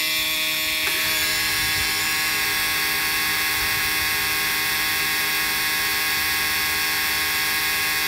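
Engine alarm buzzers at the helm of twin Cummins 330B marine diesels sounding a steady, harsh buzz with the ignition keys on, during the intake-heater preheat before cranking. They are the start-up alarms that sound until the engines are running.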